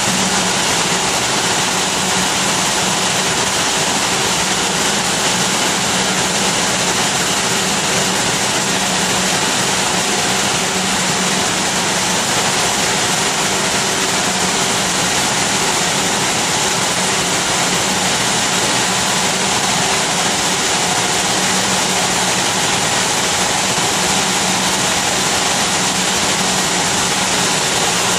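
Sapru two-for-one twister for synthetic yarn running at speed: its spindles and drive make a steady, loud hiss with a low hum underneath, unchanging throughout.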